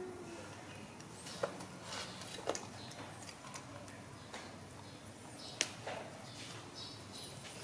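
A few sharp taps and clinks, about three in all, from a baby monkey handling food in a stainless steel bowl, over a low steady background.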